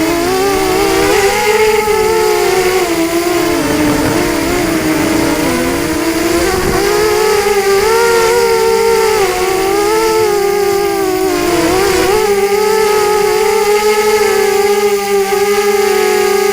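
FPV drone's electric motors whining steadily, the pitch rising and falling as the throttle changes, with wind rumbling on the microphone.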